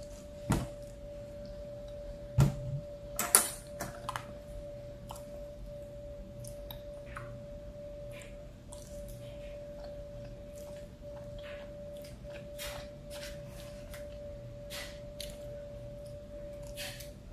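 Close-up eating sounds: wet chewing and small mouth clicks from someone eating rice with gravy off a plastic spoon. There are a few sharper knocks in the first four seconds, and a faint steady hum runs underneath.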